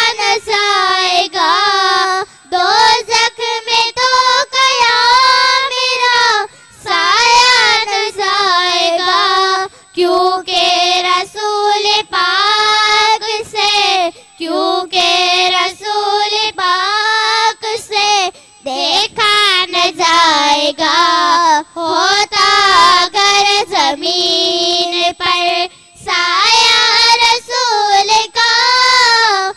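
Young girls singing a naat, an Islamic devotional poem, together into microphones without instruments, in long held, wavering melodic phrases with short breaths between them.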